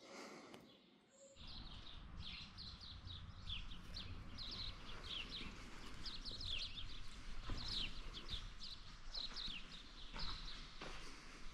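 Small birds chirping outside: a busy run of short, quick, downward-sliding chirps that starts about a second in, over a steady low rush of background noise.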